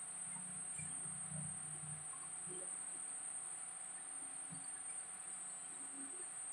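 A steady high-pitched whine, with faint taps of chalk writing on a blackboard.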